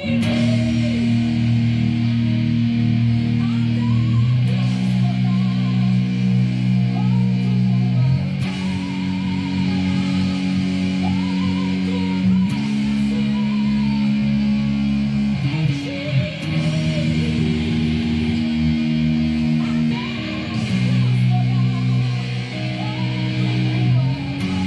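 Instrumental worship music from a guitar-and-bass rock band: sustained bass and guitar chords change about every four seconds under a wavering electric-guitar melody, with light cymbal-like hits at the chord changes.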